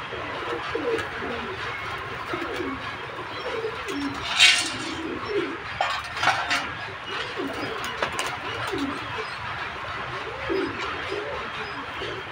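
Domestic pigeons cooing over and over in short low calls. A short loud burst of noise comes about four and a half seconds in, with a few sharp clicks a couple of seconds later.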